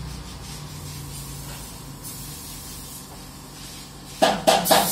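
Compressed-air paint spray gun hissing steadily, louder for about a second in the middle. Near the end, music with a drum beat comes in and is the loudest sound.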